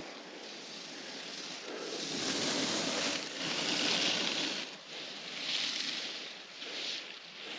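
Wind rushing in gusts, swelling to its loudest for a couple of seconds in the middle and surging again briefly twice near the end.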